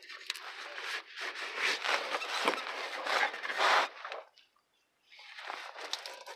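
Rustling and scraping of hands working the sticky exhaust repair tape wrapped around a car tailpipe, loudest from about a second in, with a short pause before it starts again near the end.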